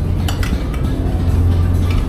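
Background music with a steady deep bass, and a few sharp clicks about a third of a second in.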